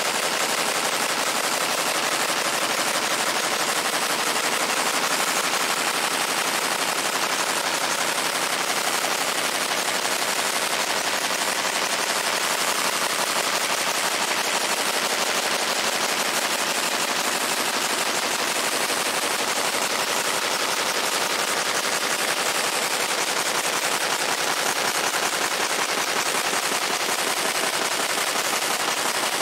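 Fiber laser engraving the steel head of a sledgehammer: a steady, dense crackling buzz as the pulsed beam ablates the metal.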